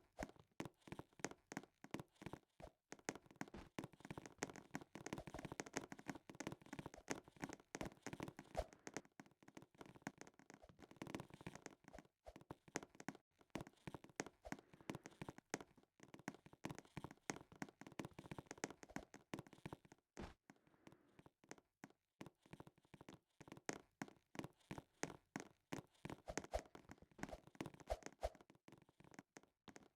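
Faint, quick small clicks and taps of hands handling small objects, several a second, with a few louder ticks.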